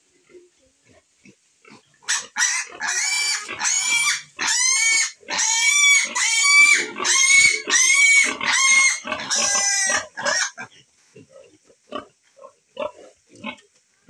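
Piglet squealing shrilly and over and over in distress while held up by its hind legs, for about eight seconds. The squeals stop suddenly.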